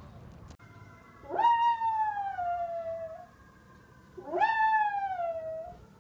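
Small black dog howling twice. Each howl rises quickly and then slides slowly down in pitch over nearly two seconds.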